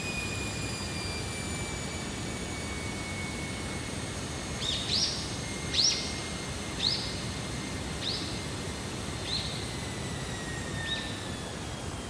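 A bird gives six short, sharp calls about a second apart, starting a little before halfway through, the third loudest and the rest fading. Under it, a distant aircraft passes with a steady rush and a faint whine that slowly falls in pitch.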